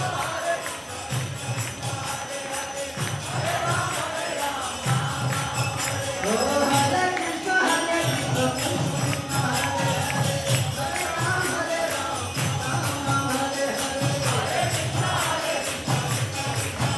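Kirtan: a group of voices singing a devotional chant, with small hand cymbals jingling in a steady beat over a repeating low drum pattern.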